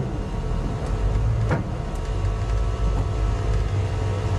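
Tiara 27 sport-fishing boat's engine running steadily under way, a low drone, with a single sharp knock about a second and a half in.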